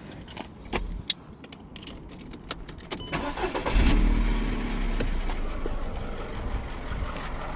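A few clicks and knocks, then a car engine is cranked and starts about three and a half seconds in, settling into a steady idle.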